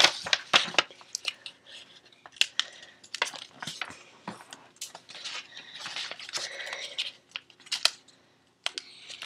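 A sheet of paper being folded and creased by hand: rustling with many short, sharp ticks as the fold is pressed down, with a brief pause near the end.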